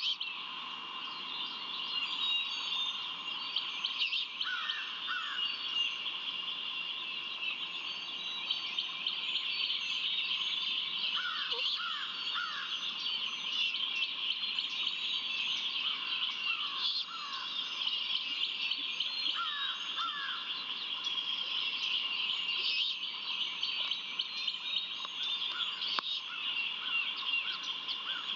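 Wild songbirds chirping and calling around the nest, a busy chorus of small chirps with short phrases of two or three slurred notes every few seconds. A steady high-pitched hum runs underneath.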